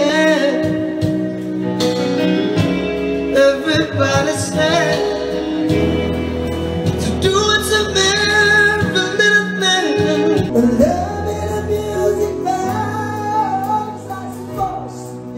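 Man singing into a handheld microphone over backing music, with a wavering vibrato on long held notes.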